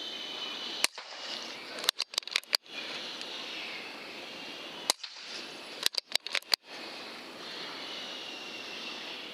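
Air rifle shooting: a single sharp crack, then about a second later a quick run of four or five clicks, and the same pattern again about four seconds later. A steady faint hiss runs underneath.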